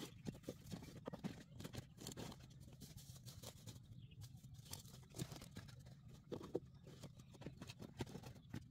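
Dry banana-leaf and palm-frond litter rustling and crackling as it is pulled apart and shifted by hand, with many small irregular snaps.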